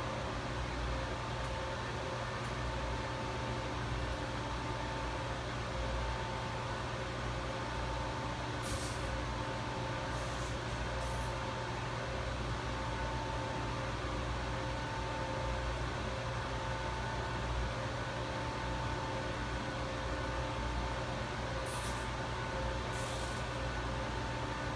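Steady low hum and hiss of running equipment or ventilation in an electrical room, with a faint whine that comes and goes. A few brief high hisses are heard around the middle and near the end.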